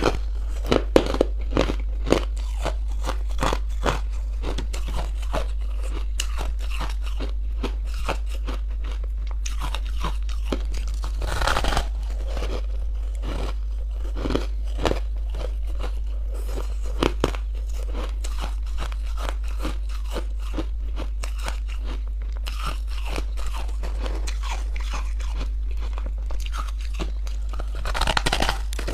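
Close-up crunching and chewing of crumbly frozen ice chunks: a dense run of sharp crackles as the ice breaks between the teeth, with louder crunches as fresh bites are taken about eleven seconds in and again near the end.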